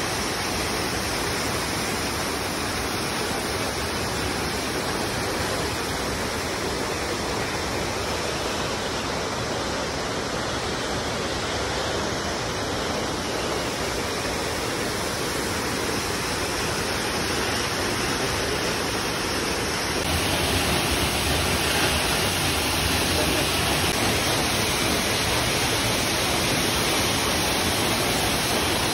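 Steady rush of a waterfall and its rocky creek, Tamanawas Falls. About two-thirds of the way in it turns louder and hissier, heard from close beside the falling water.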